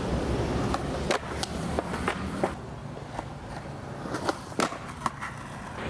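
Skateboard rolling on concrete, its wheels making a steady low rumble broken by repeated sharp clacks and knocks, the loudest about two and a half seconds in and again near four and a half seconds.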